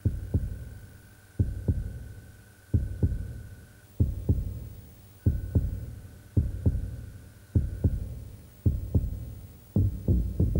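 Amplified heartbeat sound effect: slow, even double thumps, lub-dub, about once every second and a quarter, that quicken near the end. A faint steady high tone sounds under it and drops out twice.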